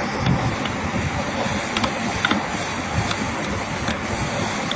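Small hand chisel cutting and scraping into carved wood, giving a few light clicks over a steady hiss.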